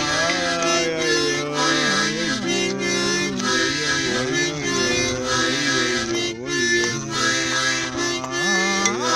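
Harmonica playing held chords, its notes sliding up and down in pitch as it plays a continuous tune.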